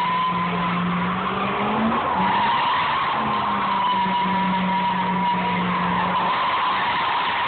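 Chevrolet Silverado single-cab pickup doing donuts: the rear tyres squeal in a steady high screech over the engine held at steady high revs. The squeal eases a couple of seconds in, then picks back up.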